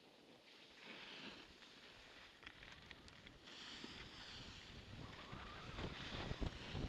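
Snowboard sliding and carving over packed snow, a scraping hiss that swells with each turn, with wind buffeting the microphone and growing louder over the last couple of seconds.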